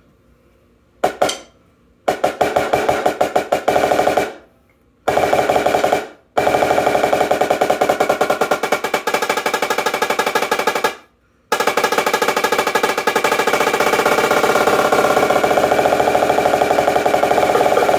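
Marching snare drum played with wooden sticks: a single hit about a second in, then fast rudiment passages and rolls, broken by three short pauses.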